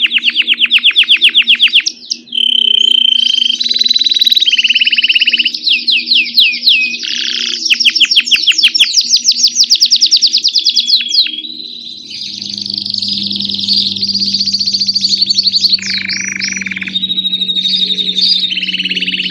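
Grey domestic canary singing a continuous song, switching every second or two between fast rattling trills and short held whistled notes.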